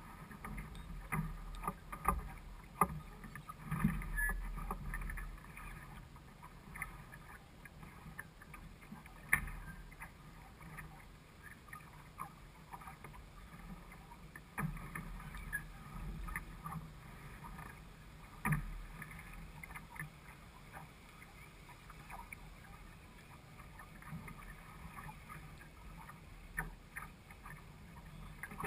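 Small sailing dinghy under way: water splashing and slapping against the hull, with wind gusting on the microphone and irregular short knocks and clicks from the boat.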